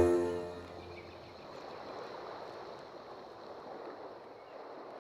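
The song's final chord dies away within the first half second, leaving a faint, even rushing noise with no pitch.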